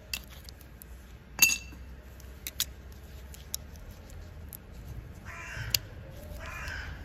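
Light metal clicks and clinks of brake pads and their steel shims being handled, with one sharp ringing clink about a second and a half in. Two harsh rasping calls, each about half a second long, come near the end.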